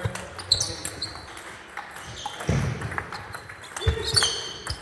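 Table tennis being played in a sports hall: a plastic ball clicking off paddles and tables in quick, uneven strokes, with a few low thuds. Short high squeaks, near the start and again near the end, from sneakers sliding on the hall floor.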